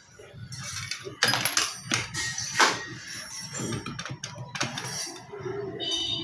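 Metal parts of a gear pump clinking and knocking together as it is dismantled by hand, a series of sharp irregular clinks with a brief metallic ring near the end.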